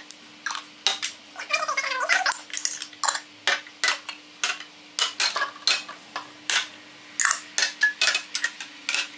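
Empty glass jars clinking and knocking against each other and the stone countertop as they are handled and sorted, with metal screw-top lids being twisted off and set down. A rapid, uneven run of clinks, two or three a second.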